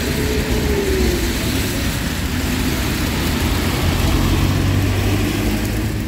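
Motor vehicle engine running nearby over a steady low rumble of street noise, its pitch sliding down about a second in.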